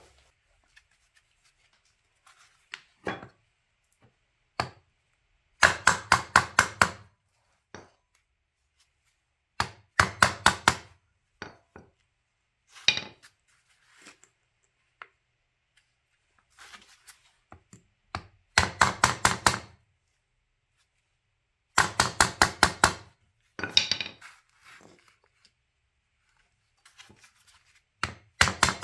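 Quick metal tapping in bursts of about six or seven strikes, five bursts in all, with a few single knocks between: a flathead screwdriver being worked under the pressed-in top cap of a Bilstein shock absorber to lift it off.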